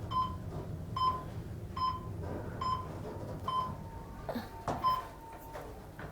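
Elevator car descending with a short electronic beep repeating a little under once a second, typical of a floor-passing tone as the car goes by each floor. A low rumble runs underneath, and there is a faint knock near the end.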